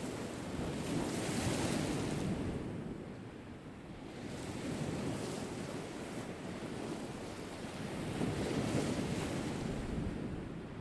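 Sea waves washing onto the shore, swelling and fading three times, every three to four seconds. Wind blows through it.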